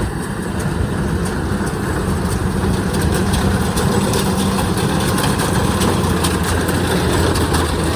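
Kubota DC-93 combine harvester's diesel engine running hard while bogged in soft, waterlogged mud, with a steady hum that grows a little louder after a second or two. Machinery clatter and ticks run over it.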